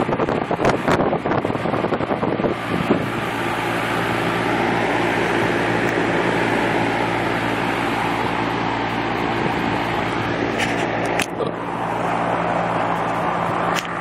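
Package air-conditioning unit running with its newly replaced condenser fan motor and blade: a steady rush of air from the fan over a low, even hum. A few brief knocks come in the first three seconds and once more near the end.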